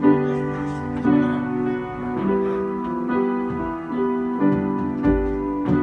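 Upright piano being played: a steady sequence of chords, the notes changing about once a second.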